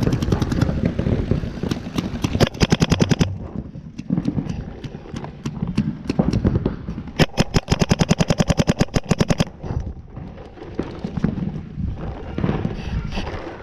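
Paintball markers firing in rapid strings of about ten shots a second, with scattered single shots between. The longest string runs about two seconds, a little past the middle.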